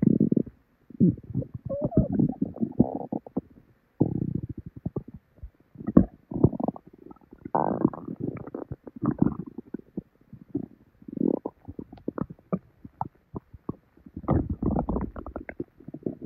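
A person's stomach gurgling and bubbling as it digests a meal: irregular bursts of low rumbling mixed with many quick popping squelches and short pauses, which the owner takes for diarrhea bubbling inside.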